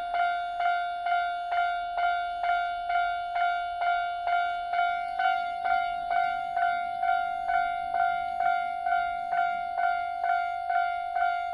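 Japanese level-crossing warning bell ringing steadily, an electronic 'kan-kan' ding repeating about twice a second, each ding fading before the next. It signals that a train is approaching and the crossing is closed.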